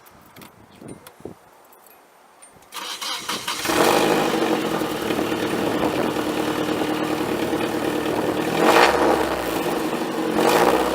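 Car engine with a freshly welded straight-pipe exhaust, headers straight back with no catalytic converter, cranking about three seconds in, catching within a second and settling into a loud, steady idle. Two short throttle blips near the end.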